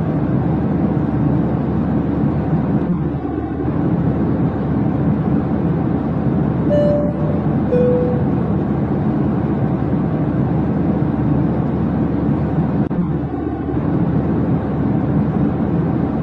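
Steady airliner cabin noise from the jet engines and airflow, with a two-note falling chime about seven seconds in.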